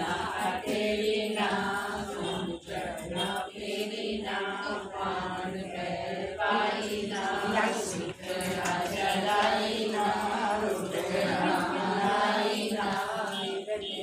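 A group of women singing a devotional Karva Chauth puja song together in a chant-like melody.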